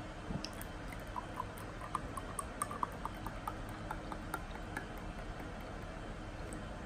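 Tomato juice pouring into a glass tumbler as it fills, heard as a run of small irregular pops and splashes that thin out near the end, over a steady low hiss.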